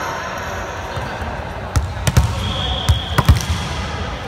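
A volleyball thudding sharply several times on the wooden court floor and players' hands, in a reverberant sports hall with steady background chatter.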